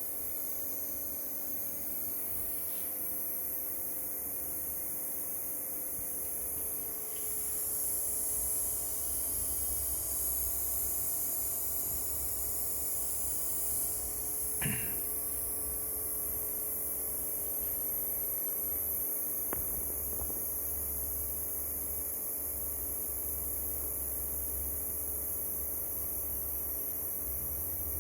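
Steady low electrical hum with a high hiss, the background of powered bench equipment, with a single short click about halfway through.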